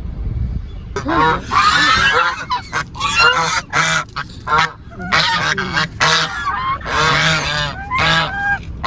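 Domestic geese honking loudly, many harsh calls in quick succession, overlapping from about a second in.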